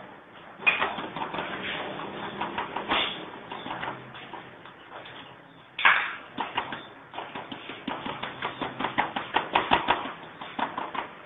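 Plastic vacuum bags crinkling and rustling as they are handled and laid out on a chamber vacuum sealer, with many quick light taps and clicks. There are a few louder crackles, and the ticking thickens in the last four seconds.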